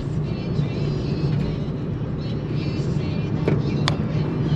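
Car driving along, heard from inside the cabin: a steady rumble of engine and road noise, with a couple of sharp knocks or rattles a little after the middle.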